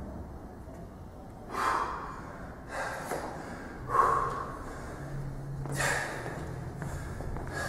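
A man breathing hard from exertion during a fast pull-up circuit, with about four loud gasping breaths a second or two apart.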